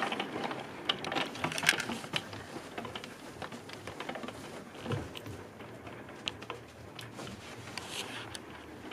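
Hail falling, a dense irregular patter of small ticks, busiest and loudest in the first couple of seconds and then settling into a steadier, softer patter.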